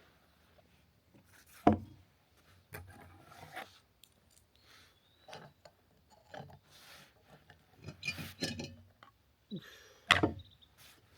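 Camp cooking gear being handled and set up for making coffee: scattered clinks, rattles and rubbing, with two sharp knocks, one a couple of seconds in and one near the end.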